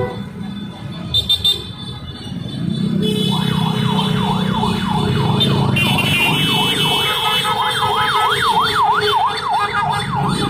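Motorcycles of a slow-moving convoy running together, with three quick horn toots about a second in. From about three seconds a siren starts up in a fast yelp, its pitch sweeping up and down about three times a second over the engines.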